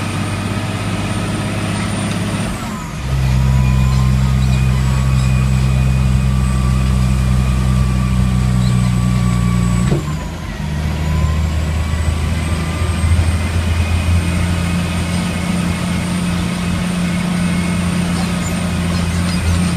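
Caterpillar 725 articulated dump truck's diesel engine running under way, heard from inside the cab. Its note dips and shifts twice, about three seconds in and again about ten seconds in, with a faint high whine over the engine.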